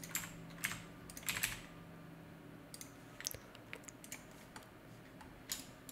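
Computer keyboard keys tapped at an irregular pace: scattered single clicks, with a short run of keystrokes about a second and a half in.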